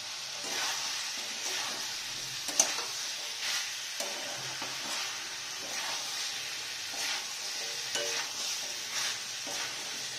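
Spatula stirring diced potatoes through sizzling mutton keema masala in a kadai, with scraping strokes against the pan about once a second over a steady frying sizzle. A sharp clink about two and a half seconds in.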